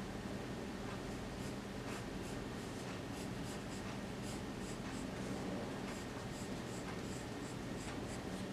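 Graphite pencil scratching on drawing paper in many short, light sketching strokes, over a steady low hum.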